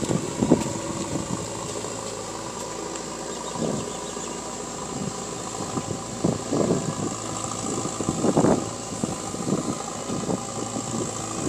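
JCB 3DX backhoe loader's diesel engine running steadily as the machine drives and turns on the dirt, with a thin high whine over it and brief louder surges every couple of seconds.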